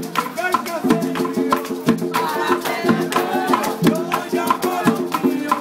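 Latin dance music with a steady shaker beat, percussion and singing.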